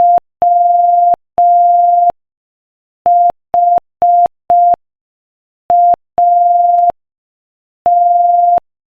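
Morse code sent as a pure tone of about 700 Hz at 5 words per minute, keyed in short dits and long dahs with clear gaps between letters. It spells W, H, A and then begins another letter with a dah near the end.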